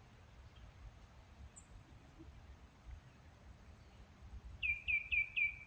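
Outdoor insect chorus: a steady, thin, high-pitched drone from crickets or similar insects. Near the end a bird calls four quick notes in a row, each sliding down in pitch.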